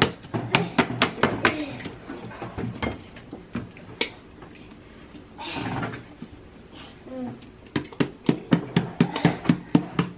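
Plastic ketchup squeeze bottle shaken hard upside down to get the sauce out: two quick runs of knocks, about six a second, one at the start and one near the end.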